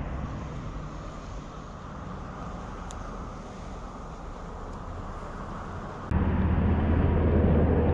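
Wind buffeting the microphone outdoors, a steady low rumble that jumps abruptly louder about six seconds in.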